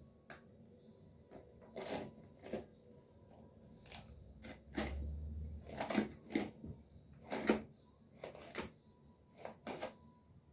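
Hairbrush bristles stroking through wet tape-in hair extensions: about a dozen short, irregular brushing strokes, faint.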